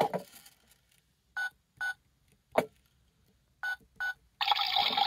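Toy washing machine beeping as its buttons are pressed: two short beeps about half a second apart, a sharp click, then another pair of beeps. Near the end its wash cycle begins with a steady rushing sound of water filling.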